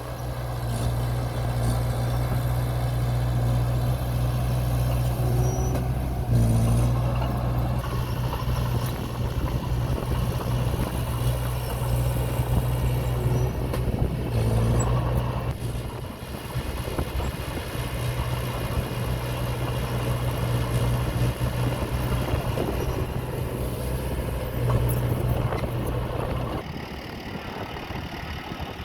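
Diesel engine of heavy earthmoving machinery running with a steady low drone. It swells a few times and drops away near the end.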